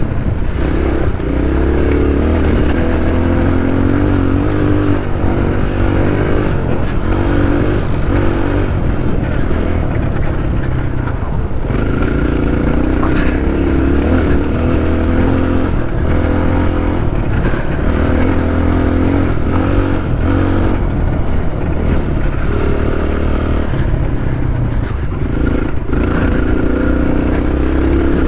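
Motorcycle engine running under way, its pitch rising and falling over and over as the throttle opens and closes, with brief dips every few seconds.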